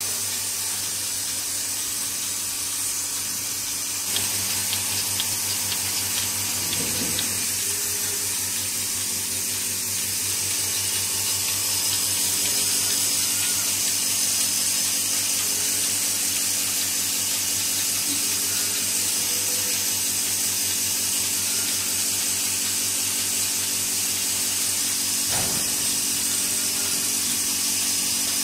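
Melasty portable milking machine running: its 1 HP electric motor and dry vane vacuum pump give a steady hum under a loud hiss, growing a little louder about four seconds in. A dull thump sounds near the end.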